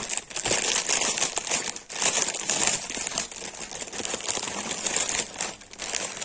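Clear plastic packaging crinkling and rustling steadily as it is handled, with two brief lulls, about two seconds in and near the end.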